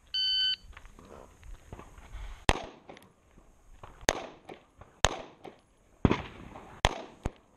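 Electronic shot timer's start beep, then six shots from a small semi-automatic backup pistol, fired slowly about a second apart, the last two closer together.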